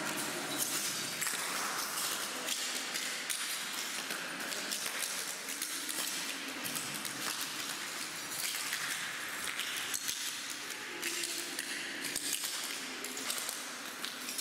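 Footsteps shuffling and crunching through a floor thickly covered with loose sheets of paper: a continuous crinkling rustle full of small crackles.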